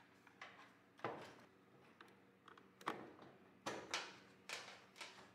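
Small clicks and knocks of a screwdriver and hands working the screws and plastic mounts of a torpedo heater's control circuit board: about nine short, sharp knocks spread unevenly, the loudest about a second in.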